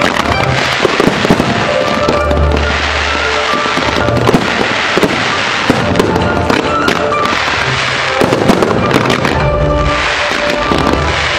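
Aerial fireworks bursting in rapid, dense volleys of cracks and pops, over the show's music soundtrack.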